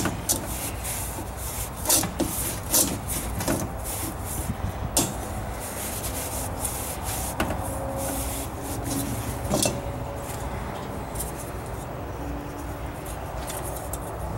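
A rag rubbing and wiping around the inside of the metal bowl of an oil bath air filter, with light clicks and knocks of the metal, most of them in the first five seconds or so. A steady low rumble runs underneath.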